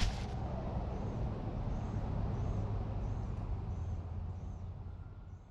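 Outdoor ambience: a steady low rumble with faint high chirps repeating about every three-quarters of a second, fading out near the end.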